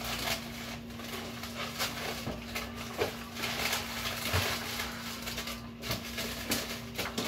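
Things being moved around inside an open freezer compartment: repeated knocks, clicks and rustling of packages and containers, over a steady low hum.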